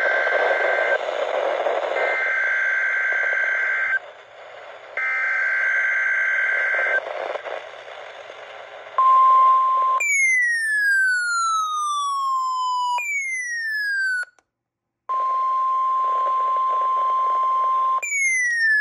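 Emergency alert tones on a weather radio. First come three bursts of the SAME data header, a rapid warbling two-pitch squeal over radio static. Then a steady single-pitch attention tone sounds, broken up by several falling electronic sweeps.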